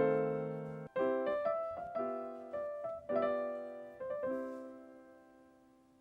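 Background piano music: a run of struck chords, the last one about four seconds in left to ring and fade out.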